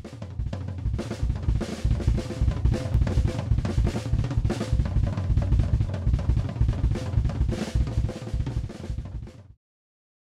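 Gretsch Catalina Club drum kit played in a fast, unbroken run of sixteenth-note strokes moving between snare, toms and bass drum, the quad fill of right hand, left hand, right foot, left foot, with cymbals ringing over it. It stops suddenly near the end.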